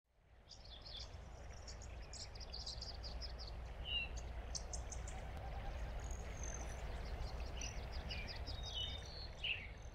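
Outdoor ambience of birds chirping and trilling, with a few short down-slurred calls, over a steady low rumble; it fades in during the first second.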